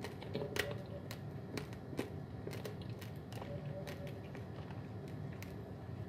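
Raw long-grain basmati rice being chewed close to the microphone: irregular sharp crunching clicks as the dry grains crack between the teeth, about two a second.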